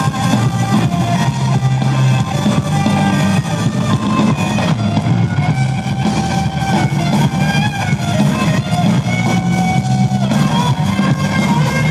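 Live rock band playing loudly: electric guitars, bass and drum kit.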